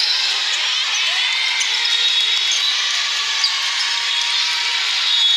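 Din of a large hall full of volleyball courts: sneakers squeaking on the court floors, balls being hit and bouncing, and crowd chatter, with one sharper knock about three and a half seconds in.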